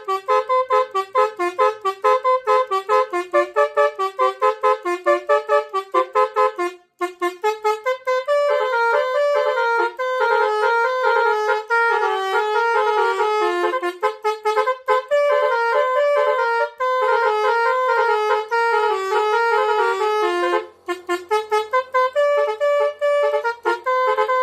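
Bus basuri horn, the Indonesian multi-tone 'telolet' air horn, playing a tune. It starts with quick short notes about three a second, then after a short break about seven seconds in moves into a smoother, held melody.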